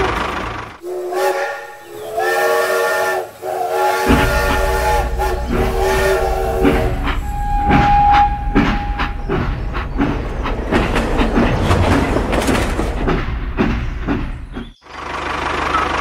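Multi-tone train horn sounding a run of chord blasts, joined about four seconds in by the low rumble and clatter of a running train, then a single held whistle note. The sound cuts off sharply near the end.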